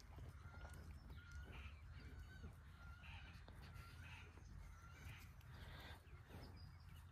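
Near silence: a faint outdoor background with a low rumble and faint short bird calls repeating every half second or so.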